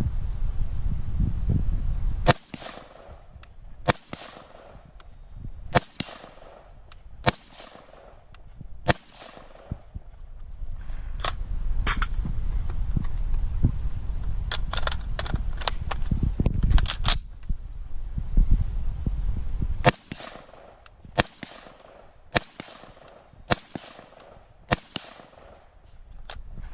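Norinco Type 97 bullpup rifle firing 5.56x45mm rounds: about twenty single shots in three strings, spaced roughly one to two seconds apart, each followed by a short ringing echo.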